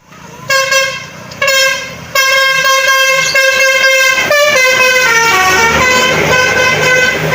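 A bus's basuri multi-tone 'telolet' horn playing a tune. It gives two short blasts, then a held chord that sweeps up and steps down through several notes before holding steady.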